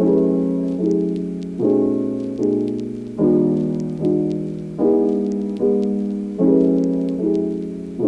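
Piano music from a Christmas album: slow chords struck about once every 0.8 seconds, each ringing and fading before the next, starting just as the track begins.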